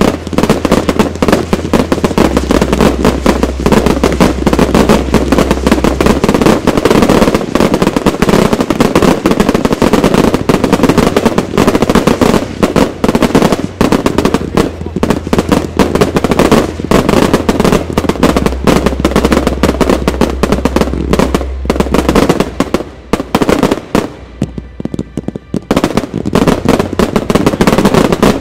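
Closing barrage of a fireworks display: dense, rapid, overlapping shell bursts and crackling. It eases off briefly near the end, then builds again.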